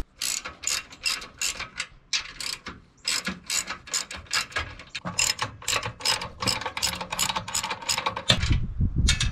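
Socket ratchet wrench clicking in quick runs, several clicks a second, as it loosens the winch mounting bolts. The clicking stops near the end.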